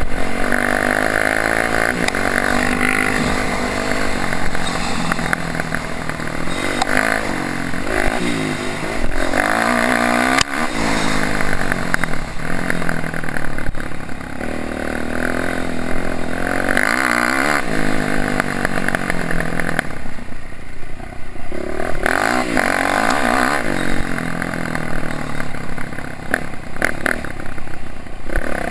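Dirt bike engine being ridden hard, its pitch rising and falling over and over as the throttle is opened and shut and the gears change. About twenty seconds in it eases off briefly before picking up again.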